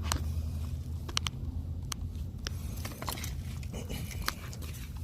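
Handling noise as a camera is repositioned and set up by hand: scattered sharp clicks and light knocks, growing into a busier clatter over the last couple of seconds, over a steady low hum.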